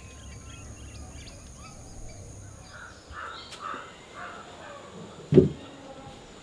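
A crow cawing about five times in quick succession, over faint outdoor ambience. A single dull knock near the end is the loudest sound.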